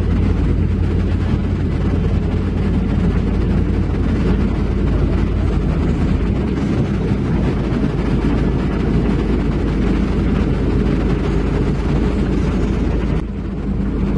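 Heavy diesel engine of construction machinery running steadily and loudly, easing off slightly about 13 seconds in.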